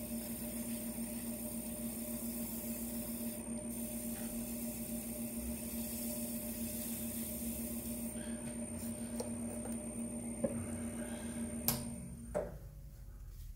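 Wood lathe running at low speed with a steady motor hum and a faint high whine, then switched off about twelve seconds in and winding down. A couple of light clicks come just before it stops.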